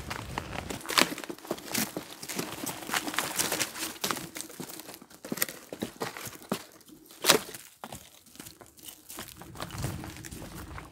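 Footsteps crunching over dry twigs, bark and forest litter, with irregular crackling and rustling and one louder snap about seven seconds in.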